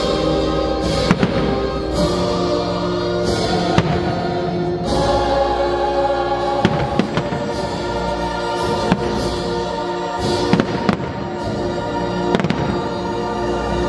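Aerial fireworks shells bursting overhead, a string of sharp bangs spread irregularly through, a few of them in quick clusters, over the steady music soundtrack of a pyro-musical show.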